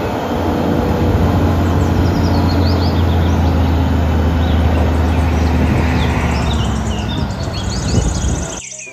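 Diesel engine of an eight-wheel tipper truck running with a steady low hum while its hydraulic ram raises the tipper body. Birds chirp over it, and the sound cuts off abruptly just before the end.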